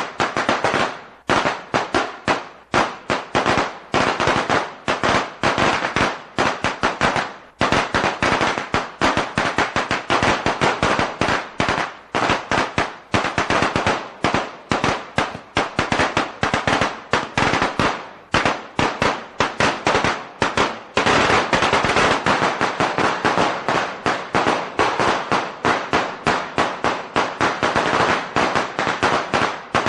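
A string of firecrackers going off in a rapid, continuous crackle of sharp bangs, several a second, packed most tightly about twenty-one seconds in.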